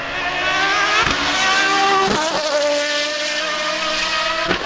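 McLaren Solus GT's Judd-derived 5.2-litre naturally aspirated V10 accelerating hard past. Its pitch climbs in each gear, with quick upshifts about a second in, again around two seconds in and near the end. It gets louder over the first second, then holds.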